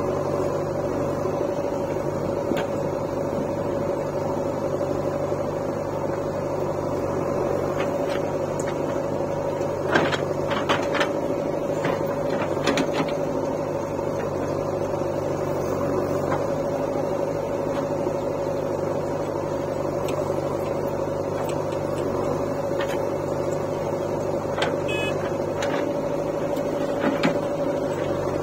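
Diesel engines of a JCB backhoe loader and tractors running steadily, with a constant whining tone over the engine drone. A few knocks and clatters come about ten to thirteen seconds in, as the loader bucket dumps soil into a tractor trolley.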